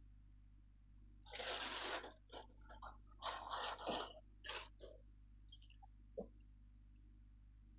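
Rustling and crinkling of parcel packaging being rummaged through: two loud bursts of about a second each, then a few shorter rustles and a single click.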